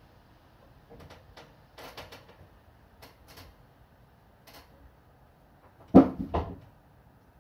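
A few light clicks and taps, then two louder knocks in quick succession about six seconds in.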